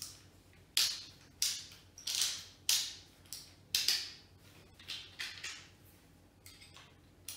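Hand screwdriver's ratchet mechanism being forced back and forth, a series of short grating strokes about two a second that thin out after about five seconds. The mechanism is stiff and rusty.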